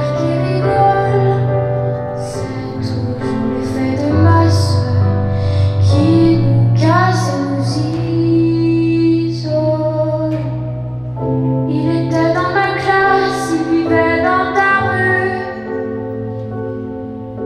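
Music with a woman singing over long held low notes, played for a pole dance routine.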